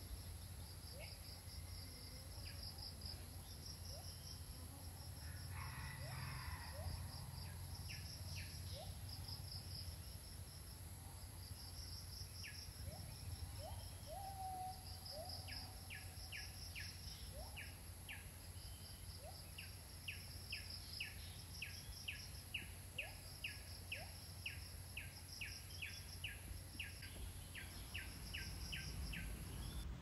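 Tropical forest ambience: insects trilling in short repeated pulses, with scattered short rising bird calls. From about halfway through, a fast series of sharp high notes repeats about two a second, over a steady low background rumble.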